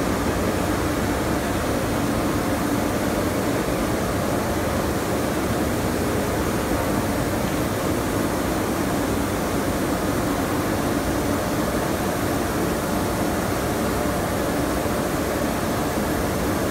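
Heliot KnitDry natural-gas-heated tensionless relax dryer running: a steady rushing noise of its hot-air fans, with a low hum underneath.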